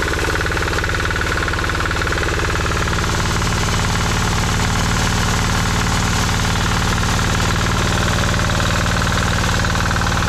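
196cc single-cylinder diesel engine running steadily while driving a brushless hub-motor generator under load, charging a 48 V battery bank at around 500 to 650 watts.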